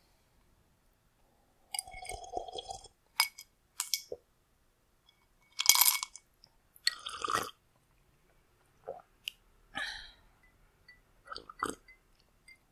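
A person drinking cold water from a glass: a series of separate gulps and wet mouth sounds with light glass clinks in between. The loudest comes about six seconds in.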